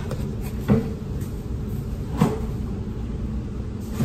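Kitchen handling sounds: a lid pressed onto a plastic food container and a refrigerator door being opened, heard as two short knocks about a second and about two seconds in, the second louder, over a low steady hum.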